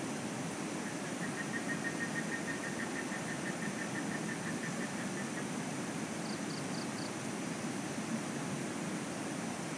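Night outdoor ambience: a steady rushing noise like running water or wind. A fast high trill starts about a second in and runs for about four seconds, and four short higher chirps follow a little later.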